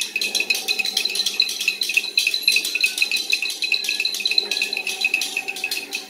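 Children making forest sounds on hand-held instruments. A fast, steady rattling carries a shrill pulsing tone like a cicada chorus. A low buzzing drone starts just after the opening, and there are a few faint short whistled glides.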